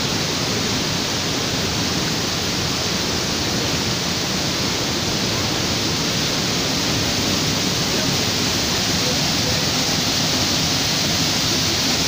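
Waterfall rushing: loud, steady noise of falling water, unbroken throughout.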